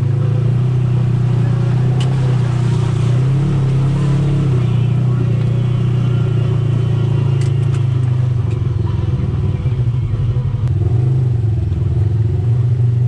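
Side-by-side UTV engine running steadily at low revs while driving a trail, its pitch wavering slightly, with a few sharp clicks of clatter about two seconds in and again around seven to nine seconds.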